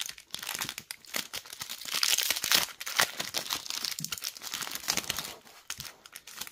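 Foil wrapper of a Panini Adrenalyn XL trading-card pack crinkling and tearing as it is handled and opened by hand. It makes a dense crackle that is busiest in the middle and thins out near the end.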